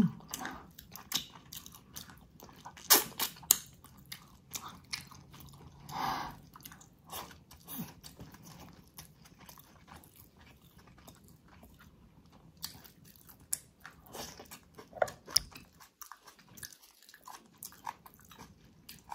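Close-miked chewing and biting of spicy braised ox feet, with irregular wet mouth clicks and crunchy snaps. The loudest snaps come in a cluster about three seconds in.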